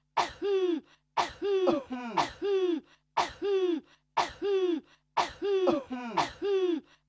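A woman coughing in a steady rhythm, about seven coughs a second apart. Each is a sharp hack that trails off into a falling, pitched vocal tone. Two of them have a second, lower cough overlapping.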